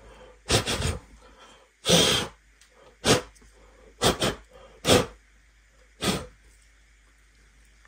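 A person blowing short, sharp puffs of breath, about six in a row a second or so apart, to clear loose styrofoam crumbs off a resin statue piece.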